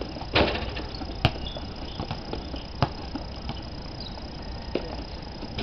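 Outdoor basketball game: a basketball hitting the hard court in a few scattered sharp thuds, the first with a brief scuffing burst. A faint steady high whine sits beneath.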